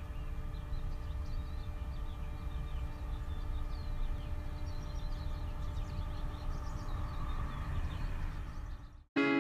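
Outdoor ambience of small birds chirping over a steady low rumble and a faint held hum. It cuts off abruptly near the end, and a plucked guitar begins.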